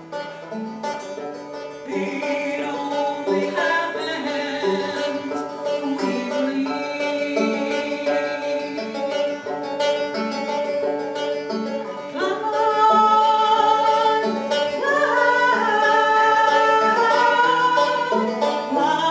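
Solo banjo picking a repeating pattern of plucked notes. About twelve seconds in, a woman's singing voice comes in over it, louder than the banjo.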